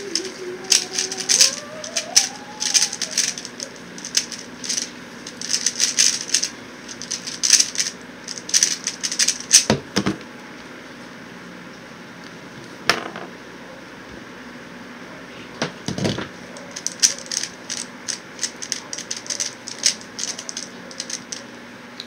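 QiYi X-Man Tornado V1 speedcube being turned fast, its plastic layers clicking and rattling in dense flurries for about ten seconds. A few single knocks follow, then more turning near the end. A desk fan hums steadily underneath.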